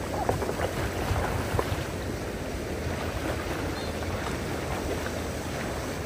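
Fast-flowing river water rushing steadily, with a few brief louder sounds in the first two seconds.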